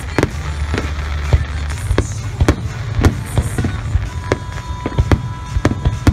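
Aerial firework shells bursting in a rapid, irregular run of bangs over a continuous low rumble.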